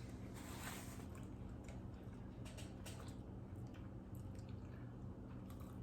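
Faint sounds of eating french fries: quiet chewing with small clicks and soft rustles, over a steady low hum.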